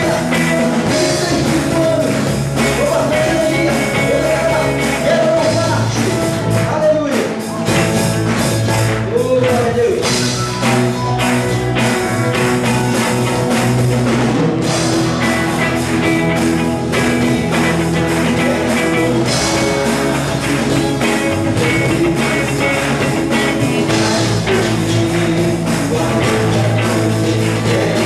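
Upbeat church worship-band music with guitar and singing, played at a steady loud level.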